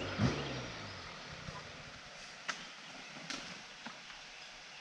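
A dirt bike engine running at low revs dies away within the first second. What follows is quiet, with a few sharp clicks and knocks scattered through the middle.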